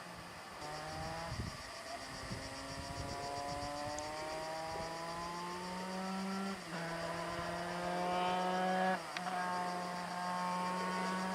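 Simson moped's tuned 100 cc two-stroke single-cylinder engine under way, its pitch climbing slowly for several seconds as it pulls. The pitch then drops sharply twice, about six and a half and about nine seconds in, as it shifts up a gear, and holds fairly steady after each drop.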